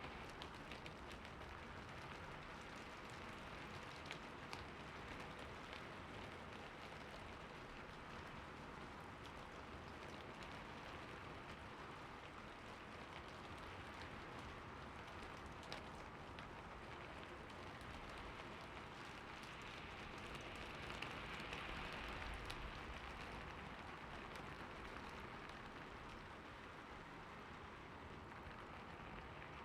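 Steady rain falling, an even hiss with scattered drop ticks, swelling slightly about two-thirds of the way through.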